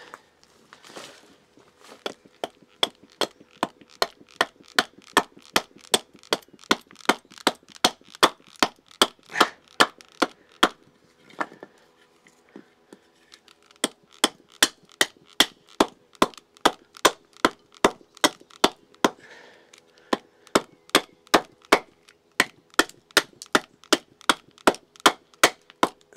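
A blade chopping into a wooden kuksa blank with quick, regular strikes, about two to three a second, with a short pause near the middle: waste wood being split out between stop cuts to rough out the cup's shape.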